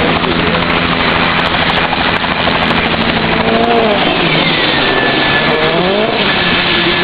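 Helicopter landing close by: loud rushing rotor wash with the engine running. About four seconds in, a high whine slides down in pitch and then holds steady.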